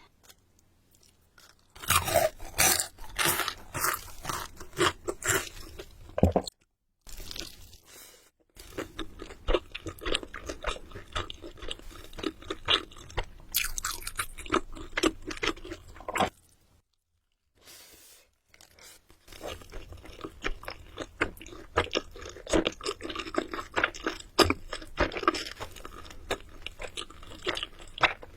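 A person biting and chewing crunchy food close to the microphone: runs of crisp crunches and wet chewing, broken by a few short pauses.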